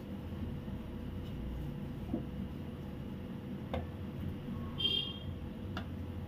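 Wooden rolling pin rolling out roti dough on a wooden board: a low steady rumble with a few light clicks and knocks, and a short ringing clink just before five seconds in.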